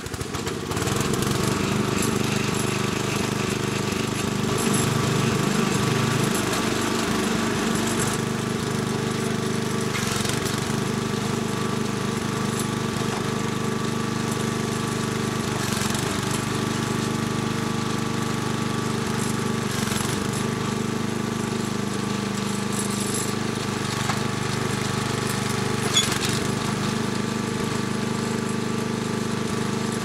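Small gasoline engine on a homemade towable hydraulic backhoe catching and settling into a steady run, driving the hydraulics while the boom and bucket are worked. A single clank sounds a few seconds before the end.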